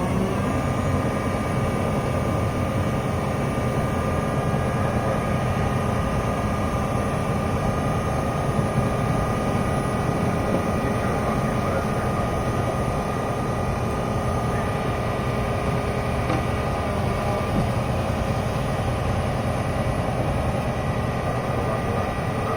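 Fire truck's diesel engine running steadily with a constant whine. Its pitch rises for the first half second, then holds level.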